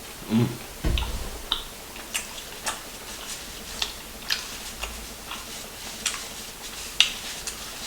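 Close-miked mouth sounds of eating chicken: irregular sharp wet clicks and smacks of chewing, a few per second. A short low hum and a low thump come in the first second.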